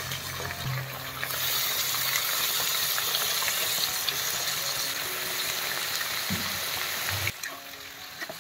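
Raw chicken pieces sizzling in hot oil with sliced onions in a frying pan as more pieces go in. The sizzle grows louder about a second in and drops away suddenly near the end.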